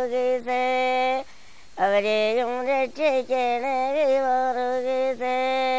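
One unaccompanied voice singing an old devotional hymn in praise of Saint George, chant-like, in long held notes that bend gently in pitch. The voice breaks off briefly a little over a second in, then goes on.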